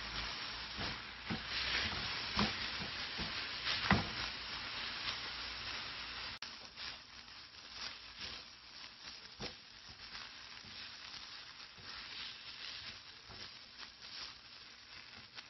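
An orange spatula stirring and scraping minced meat, onion and green pepper in a black non-stick frying pan, with many short scrapes over a steady sizzle. The sound is louder for the first six seconds and drops abruptly about six seconds in.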